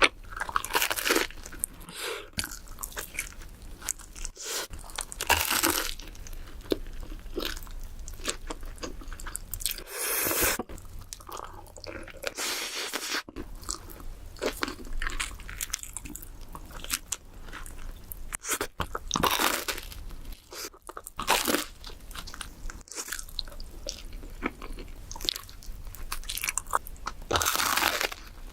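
Close-miked bites into pizza, the crust crunching, each followed by chewing. A run of separate bites, the loudest crunches coming every few seconds.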